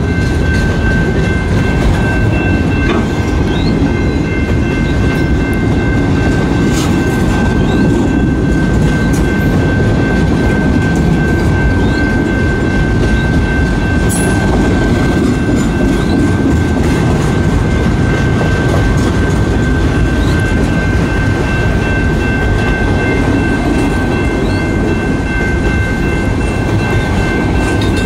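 CN mixed freight train's autorack cars rolling past at a grade crossing: a steady, loud rumble of wheels on rail with clickety-clack over the joints. A steady high-pitched ringing tone carries on above it throughout.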